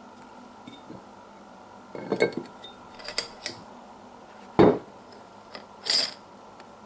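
Cast-iron lid being set onto a small cast-iron Dutch oven: a few light metal clinks about two and three seconds in, then a louder clank about two-thirds through and another with a bright ring near the end.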